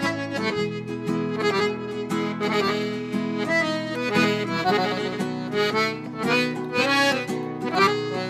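Accordion (gaita) playing a quick melody over held bass chords, with guitar accompaniment: the instrumental introduction of a gaúcho folk song.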